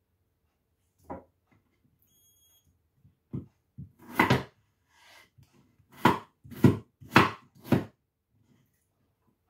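Chef's knife cutting raw potatoes on a wooden chopping board: scattered knocks of the blade on the board, then four quick chops about two a second near the end.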